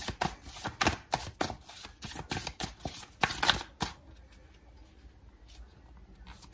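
A deck of tarot cards being shuffled by hand: a quick, irregular run of card slaps and flicks for about four seconds, then only a few faint taps.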